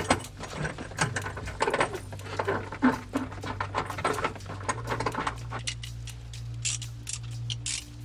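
Irregular small metal clicks and rattles of a steel seatbelt anchor bracket and its bolt being handled and fitted, denser for the first few seconds and then sparser, sharper ticks, over a low steady hum.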